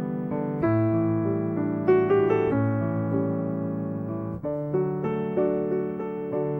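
Background piano music: gentle chords and a slow melody.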